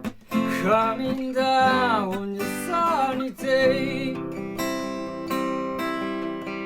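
Acoustic guitar strumming chords in a song's closing bars, with a sliding, wavering melody line over it for the first few seconds, then a chord left ringing out.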